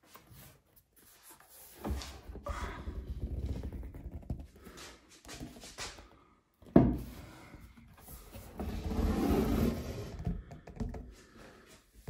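A large board panel being carried and handled: rubbing and scraping against hands and surfaces, with a sharp knock about two-thirds of the way through.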